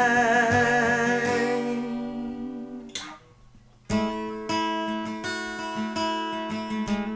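Song with acoustic guitar: the last word of a sung line is held with vibrato over strummed guitar, the music drops out to a brief near-silent break about three seconds in, then the acoustic guitar comes back in.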